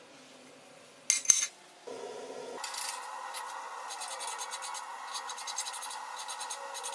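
Hand file rasping across a metal bar clamped in a bench vise, in quick, evenly repeated strokes. A brief loud knock comes about a second in, before the filing starts.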